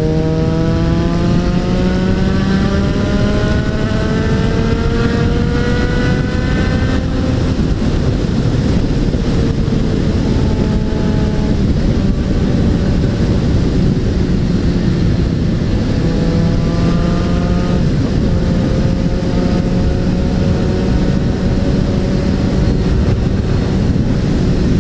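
Suzuki Bandit 650N's inline-four engine accelerating hard, its pitch climbing for about seven seconds before a gear change, then cruising with a second brief rise later on. Heavy wind noise on the bike-mounted microphone runs underneath.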